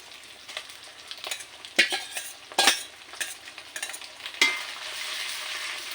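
Spice paste of onion, ginger and red chilli frying in hot mustard oil in a kadai, stirred with a metal spatula that scrapes and knocks against the pan a few times. After about four and a half seconds the sizzle grows louder and steady.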